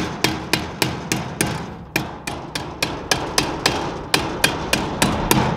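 Ball-peen hammer striking the end of a steel exhaust pipe in a steady rhythm of about three to four blows a second, beating a 3-inch pipe down so it fits a 2 3/4-inch connection.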